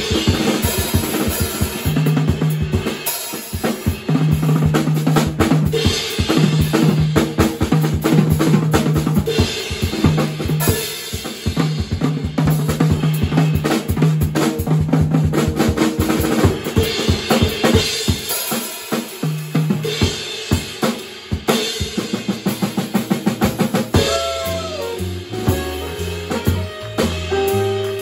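Jazz drum kit solo on snare, bass drum and cymbals, with rimshots and rolls over a repeated low note, the strokes coming faster near the middle. About four seconds before the end the band comes back in with a moving bass line and saxophone.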